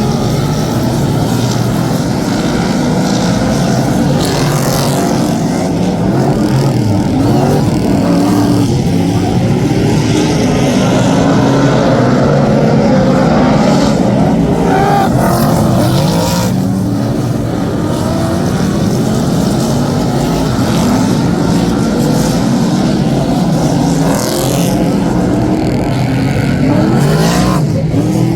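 A pack of superstock speedway cars racing, several V8 engines running hard at once, their pitches rising and falling as the cars lap the track.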